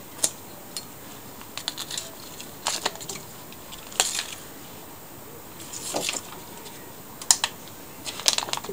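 Scattered light clicks and taps, some in quick little clusters, with a short rustle of paper wrapping about six seconds in, as blocks of butter are unwrapped and handled on a digital kitchen scale.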